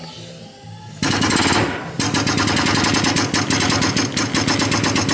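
Hydraulic car lift raising the vehicle: the power unit's motor hums while a fast, even clatter of about ten clicks a second runs alongside. It starts about a second in and pauses briefly near two seconds.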